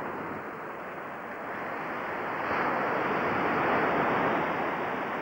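Ocean surf breaking and washing up onto a sandy beach, swelling about two seconds in and easing toward the end.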